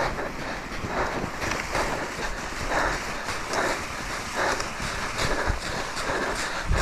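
Mountain bike tyres crunching and sliding through soft, rutted snow, with wind buffeting the helmet camera's microphone; the noise surges unevenly about once a second.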